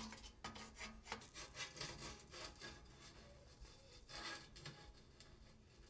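Faint scraping and rubbing of a tinsmith's hand tools on tin plate, in short, irregular strokes.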